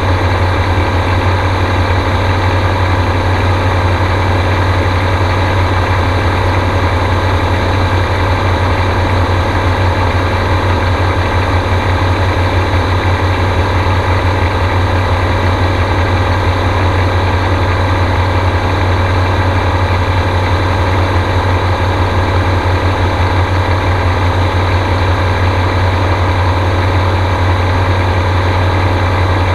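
Apollo gyrocopter's engine running steadily in flight: a constant, even drone with a strong low hum and no change in pitch.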